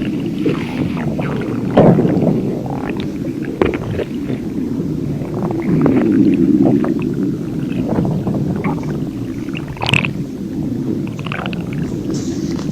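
A person's stomach growling non-stop: a continuous low rumble broken by many short gurgles and squelches. It swells louder about six seconds in, and there is a sharp gurgle near ten seconds.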